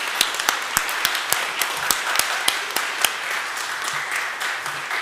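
Church congregation applauding, with a few sharp individual claps standing out over the general clapping during the first few seconds.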